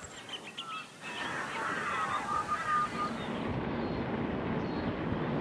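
Galahs calling in short, wavering squawks, with steady wind and riding noise building up from about a second in.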